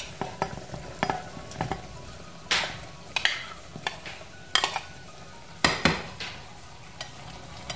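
A metal spoon scraping and clinking against a china plate and an aluminium pot as fried potato and brinjal pieces are pushed off the plate into the pot. It comes as a dozen or so scattered sharp clinks and scrapes, the loudest about three-quarters of the way through.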